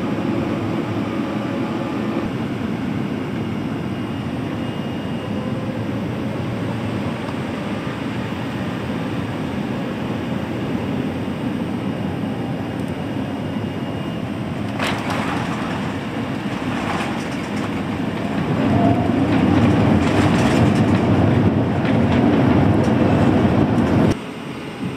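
Airbus A380 cabin noise on final approach and landing: a steady rushing hum, a few sharp knocks about 15 seconds in as the wheels meet the runway, then a louder low rumble on the landing roll that cuts off suddenly near the end.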